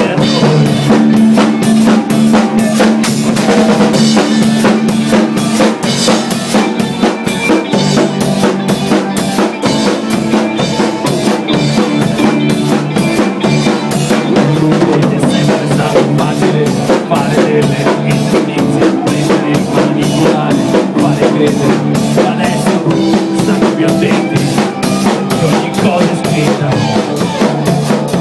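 Rock band playing: drum kit with cymbals, electric guitar and bass guitar keeping a steady beat.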